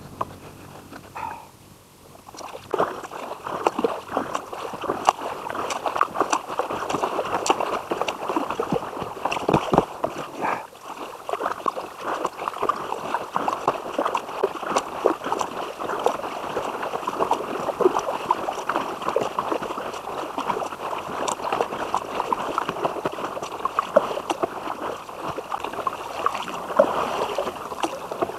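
Water splashing and gurgling against a kayak as it is paddled along: a dense crackle of small splashes that picks up about two seconds in, with a short lull around ten seconds in.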